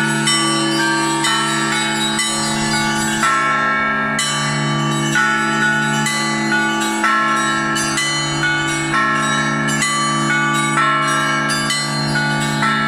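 Russian Orthodox church bells ringing in a continuous peal: quick strikes on the smaller bells, several a second, over the long hum of the deep bells.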